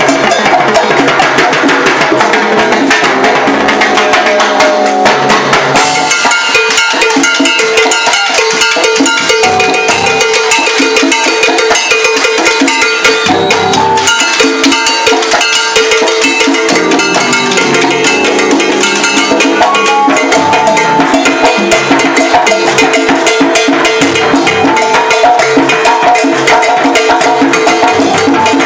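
Salsa orchestra playing live and loud: timbales, congas and upright bass drive a dense, fast percussion rhythm under sustained melody notes, the arrangement changing about six seconds in.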